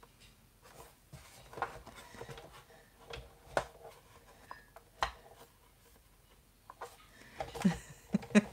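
Scattered light clicks and taps of plastic cutting plates being handled and set on the platform of a Sizzix die-cutting machine, the sharpest about a second and a half, three and a half and five seconds in.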